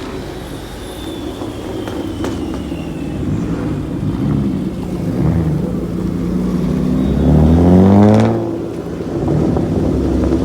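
Car engines running, with one car revving hard: its engine note climbs steeply to the loudest point about eight seconds in, then dies back down.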